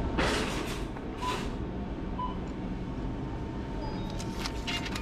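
Self-checkout receipt printer finishing a receipt, with two short noisy bursts in the first second and a half, over a steady store hum and a couple of faint short beeps. Near the end come small clicks and paper sounds as the receipt is taken from the printer.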